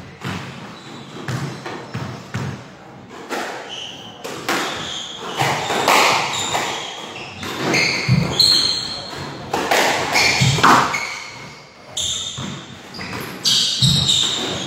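Squash rally: a string of sharp knocks as the ball is struck by the racquets and hits the court walls, with short high squeaks of court shoes on the wooden floor.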